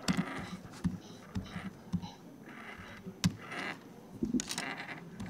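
Typing on a laptop keyboard: irregular, quick key clicks.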